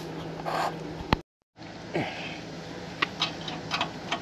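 A dog sniffing close to the microphone for about a second, then, after a cut, scattered light clicks and taps as a cordless drill is set against the stabilizer jack's bolts under the camper.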